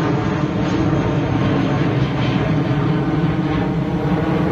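Twin-engine jet airliner passing low overhead, its engines making a loud, steady rumble.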